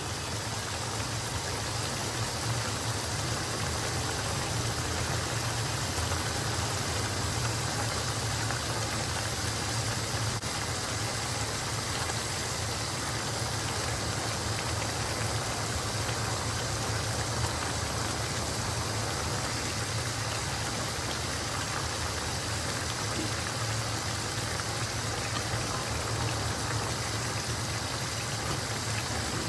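Tomato sauce simmering and bubbling in a frying pan on a gas burner, over a steady low hum.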